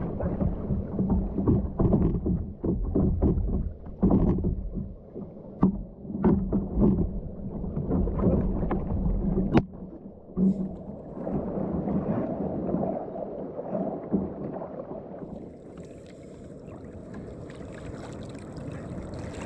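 Water splashing and sloshing around a kayak in the surf, with many sharp knocks and bumps in the first half, then a steadier wash of water and wind.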